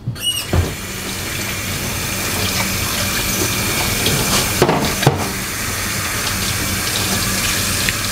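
Kitchen tap running steadily into a sink, with a few short knocks of dishes about half a second in and again around the middle.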